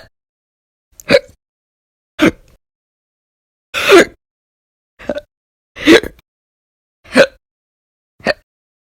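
A woman hiccuping over and over, about seven sharp, loud hiccups roughly a second apart, with silence between.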